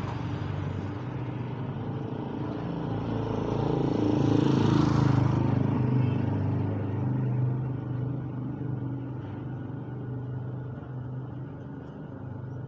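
A motor vehicle's engine passing on the street, a steady hum that grows louder to a peak about five seconds in and then fades away.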